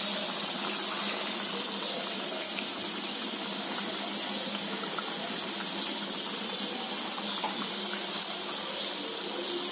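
Baati dough pieces deep-frying in hot oil in a steel kadhai: a steady, even sizzle of bubbling oil, with the oil fully heated over a medium-high flame.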